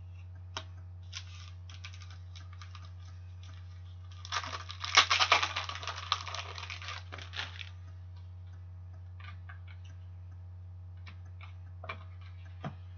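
Trading cards being handled, with the stiff cards clicking and sliding against each other: scattered clicks at first, a dense flurry of card-on-card flicking and rustling from about four to seven and a half seconds in, then scattered clicks again. A steady low hum runs underneath.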